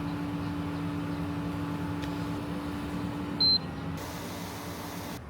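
An electric kitchen appliance's fan humming steadily, then one short high electronic beep about three and a half seconds in as the hum dies away.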